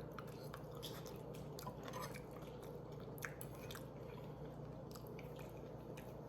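A person chewing a mouthful of food close to the microphone, faint with scattered soft wet mouth clicks.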